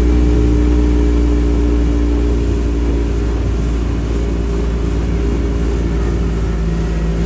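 An engine running steadily: a loud, even drone with a constant low hum.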